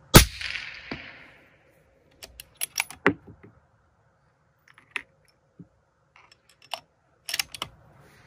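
A single shot from a Remington 700 bolt-action rifle in .260 Remington fired through an Otter Creek Labs Hydrogen-S titanium suppressor: one sharp report with a ringing tail of about a second. It is followed by a run of metallic clicks and clacks from about two seconds in as the bolt is worked, with more scattered clicks later.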